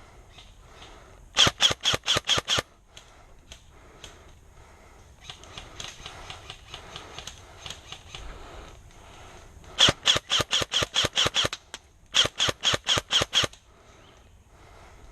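Airsoft gun firing three strings of rapid shots, about six a second, the second string the longest. Quieter rustling in between.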